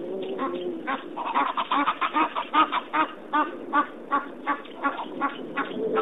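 An animal giving a long series of short, pitched calls: about five a second at first, slowing to two or three a second toward the end.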